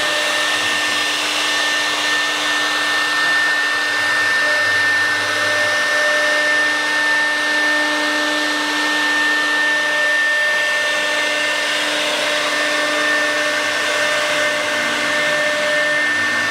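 CNC wood carving router running steadily, its spindle giving a high, even whine over a motor hiss.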